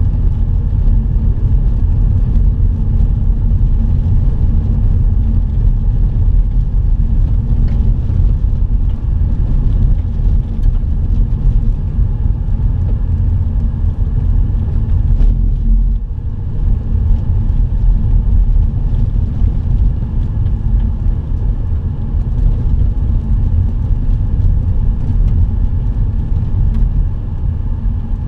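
Steady low rumble of a vehicle driving on a dirt road, heard from inside the cabin: engine and tyres on the unpaved surface.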